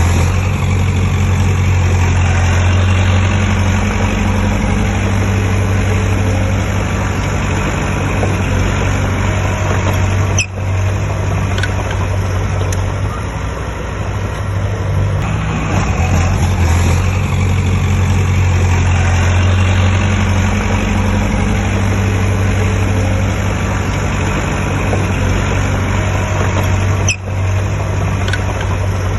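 Heavy diesel engine of earthmoving machinery running steadily, its low drone swelling and easing every several seconds, with two brief breaks, one about ten seconds in and one near the end.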